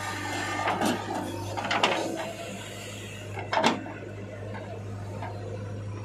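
JCB 3DX backhoe loader's diesel engine running steadily, with a few sharp clunks and knocks, about a second in, around two seconds and the loudest near four seconds, as its bucket tips soil into a tractor trolley and swings back to dig.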